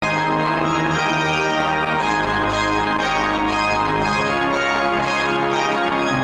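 Church organ playing the postlude: full, sustained chords that shift slowly, cutting in suddenly at the start.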